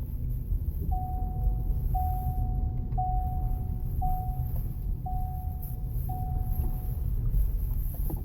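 Vehicle warning chime beeping six times, about once a second, each beep a single steady mid-pitched tone, over a low steady rumble.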